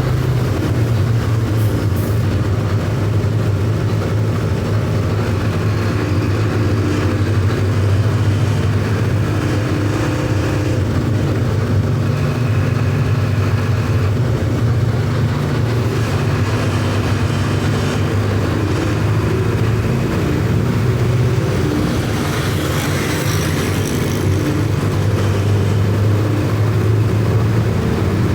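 Mercedes-Benz OF 1519 bus's four-cylinder electronic diesel engine running steadily while driving, its low drone shifting in pitch a few times.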